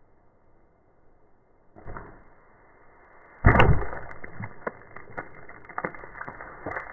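A longbow shot at a balloon target: a faint rush about two seconds in, then a loud sharp impact about three and a half seconds in, followed by a string of smaller clicks and knocks.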